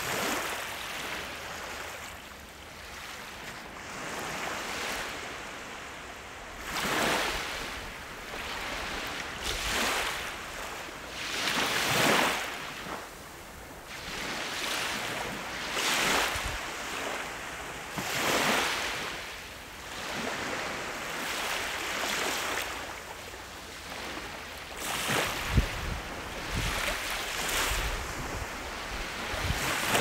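Small waves breaking and washing up a sandy shore, a hissing surge of foam that swells and fades every two to three seconds. Late on, a few low rumbles and a brief low thump stand out.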